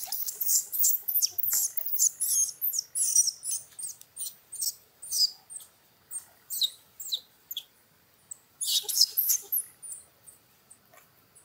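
Young long-tailed macaque screaming: rapid strings of short, shrill cries, densest over the first half, then a pause, another burst, and a trailing off near the end. A weaning tantrum, the youngster crying to be nursed by its mother.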